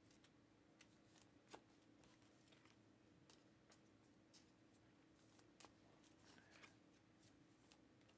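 Near silence, broken by faint, irregular clicks and rustles of trading cards being handled and sorted by hand.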